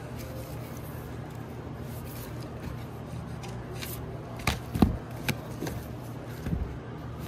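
Vinyl LP record jackets being flipped forward by hand in a crate, the cardboard sleeves slapping and knocking against each other, with a cluster of sharper knocks past the middle and one more near the end.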